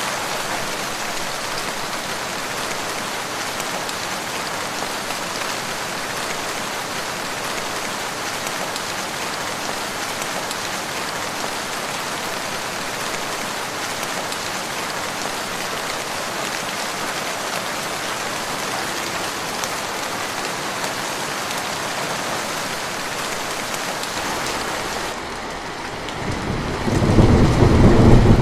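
Steady rain falling, an even hiss, and near the end a loud low roll of thunder swells up as the rain's hiss drops away.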